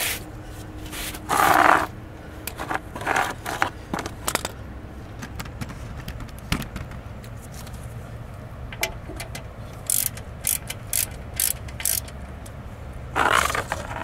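Socket wrench with an extension loosening the oil drain plug of a Briggs & Stratton lawn mower engine: a string of short metal clicks and scrapes, with two louder scraping noises, one about a second in and one near the end.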